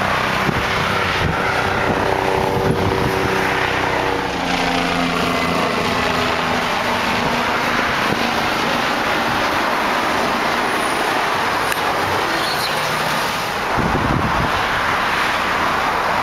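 Steady highway traffic noise, with a vehicle passing about four seconds in, its pitch dropping as it goes by.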